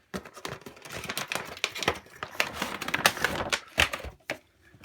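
Toy packaging being opened and handled: plastic and cardboard crinkling and clicking in quick, irregular bursts, with a short pause near the end.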